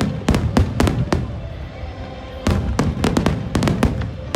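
Fireworks display: rapid volleys of sharp firework bangs in clusters, a run in the first second, then a thinner spell, then a dense run from about two and a half seconds in.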